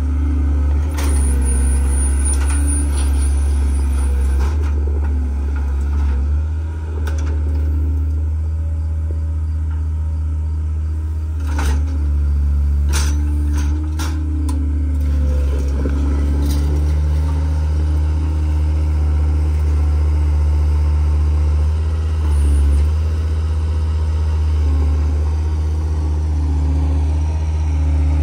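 Vehicle engine running steadily while driving on the road: a deep, even drone with a few scattered rattles and clicks.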